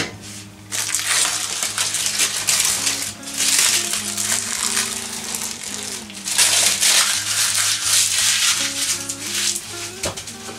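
Baking parchment being peeled off the side of a baked sponge cake and crumpled, in several long crinkly rustles, with a brief clank at the very start as the metal springform ring is set down. Quiet background music runs underneath.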